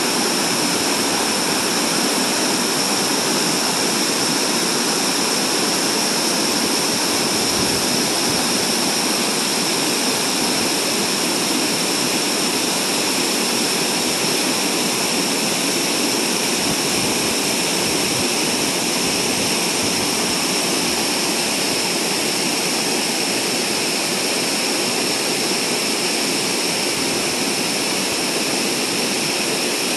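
Waterfall and rocky creek rushing loudly and steadily: white water pouring over rock into a pool and running fast between boulders.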